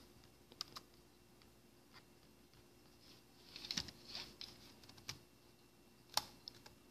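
Faint, scattered clicks of a laptop being operated, with a short flurry of clicks about four seconds in.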